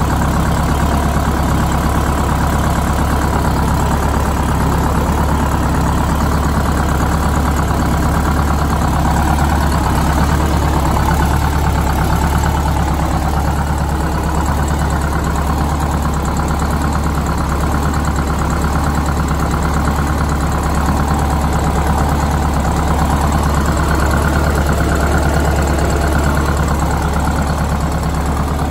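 Detroit Diesel 8V71 two-stroke V8 diesel idling steadily, running again after its emptied fuel system was primed by hand.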